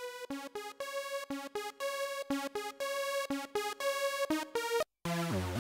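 NX-Synth One software synthesizer playing its 'NX Dance Lead LD' preset: a bright sawtooth lead in a quick melody of short, evenly chopped notes. Near the end it cuts out for a moment and a lower, fuller patch comes in with sliding pitches.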